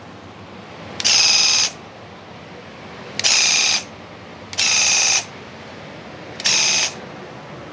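Graco Ultra Max cordless handheld airless sprayer triggered four times in short bursts of about half a second, its pump giving a high-pitched buzz each time.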